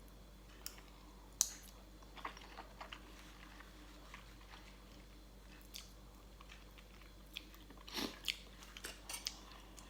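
A person chewing and biting into papaya salad with chicken feet: quiet mouth sounds with a few scattered crunches and clicks, a small cluster of them near the end.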